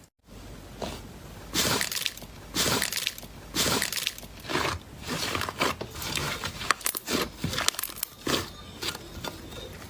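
Slime being squeezed and squashed by hand: repeated wet squishes with crackly pops, roughly one a second.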